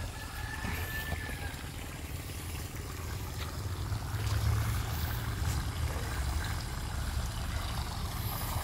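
Outdoor pond ambience: a steady low rumble with faint trickling water.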